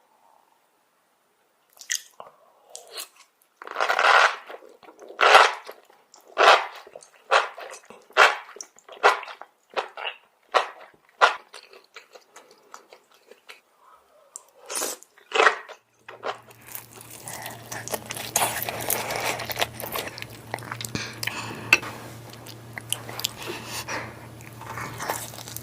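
Close-up crunchy chewing, about one loud crunch a second. About two-thirds of the way through, a steady low hum and hiss come in under softer chewing noises.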